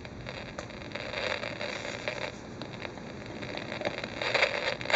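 Radio static: a steady hiss with scattered crackles and clicks, with no clear broadcast speech coming through.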